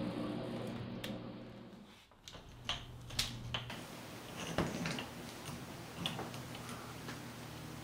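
A steady appliance hum with several tones that fades out about two seconds in. Then come sharp, separate clicks, a few at a time, as the control knobs of an electric glass-top cooktop are turned.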